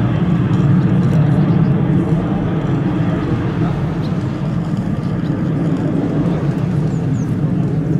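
Formation of six Aero L-39 Albatros jet trainers flying overhead, their jet engines making a loud, steady, rumbling noise.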